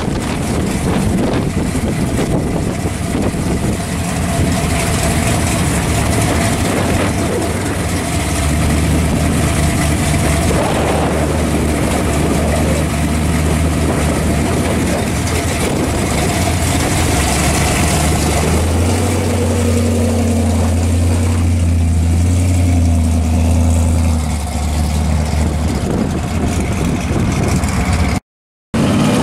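Supercharged V8 of a 1974 Camaro pro street car idling loudly. Its low, steady note grows deeper and stronger partway through, and the car pulls away near the end.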